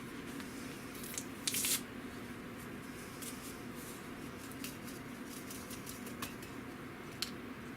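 Paper packets of lemon powder rustling as they are torn and shaken out, with a short burst of crackling about a second and a half in and a few light ticks after, over a faint steady hum.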